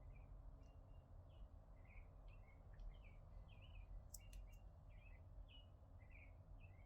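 Faint bird chirping: a string of short repeated calls, about two a second, with a couple of faint clicks about four seconds in.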